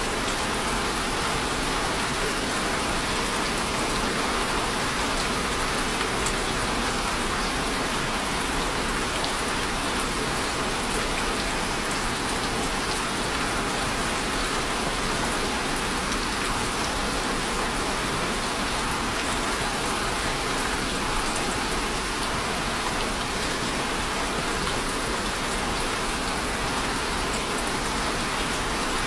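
Steady rainfall: an even hiss of rain with scattered drops pattering on a surface.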